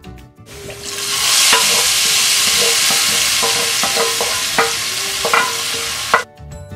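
Hot oil tempering (tarka) poured from the frying pan into a pot of haleem, sizzling loudly and steadily for several seconds, with a few sharp knocks and scrapes of a wooden spatula on the pan.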